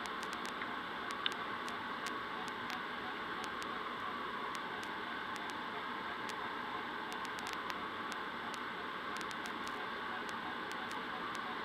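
Steady rush of air over the canopy of a PIK-20B glider in flight, heard inside the cockpit, with no engine. Faint scattered clicks sit over it, and one sharper click comes about a second in.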